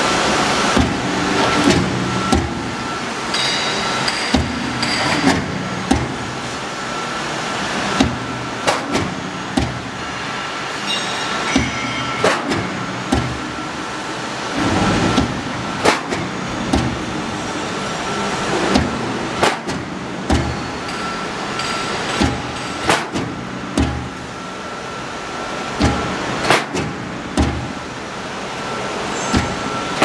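Hydraulic roof-sheet crimp-curving and roll forming machine running: a steady mechanical hum with a faint high whine, and irregular sharp metallic clacks, about one a second, as the profiled steel sheet is pressed and crimped.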